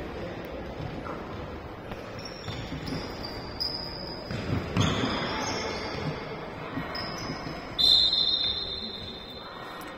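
Korfball play on an indoor court: shoes squeaking on the floor and the ball bouncing, over a steady hum of players and spectators. About eight seconds in comes the loudest sound, a sharp high tone lasting about a second.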